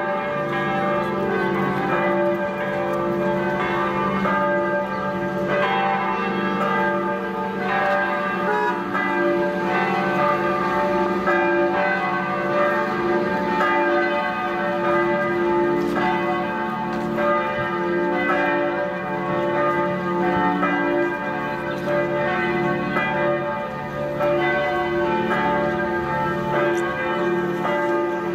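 Church bells ringing in a continuous peal: several bells struck over and over, their tones overlapping.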